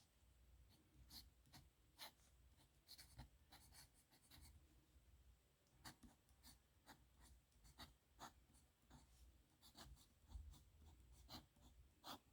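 Faint scratching of a dip pen's metal nib on paper, in short, irregular strokes while writing.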